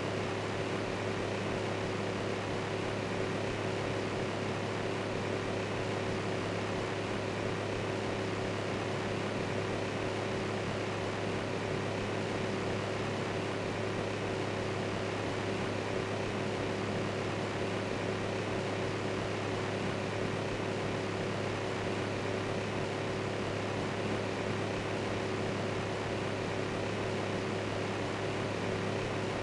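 Electric fan running steadily: an even whirring hiss with a constant low hum and a fainter steady tone above it.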